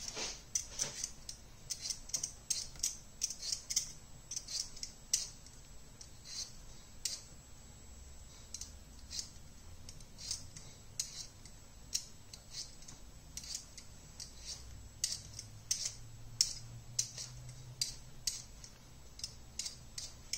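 Potato being peeled by hand: a run of short, crisp scraping strokes of the blade against the skin, about two a second, unevenly spaced.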